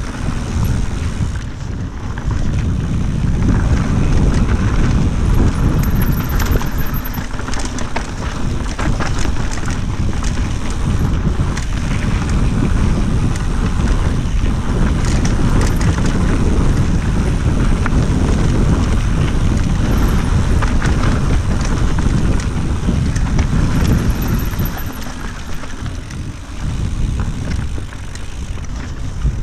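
Wind buffeting the camera microphone over the rolling of mountain bike tyres on a dirt trail at speed, with frequent rattles and clicks from the bike over bumps. The noise eases somewhat near the end.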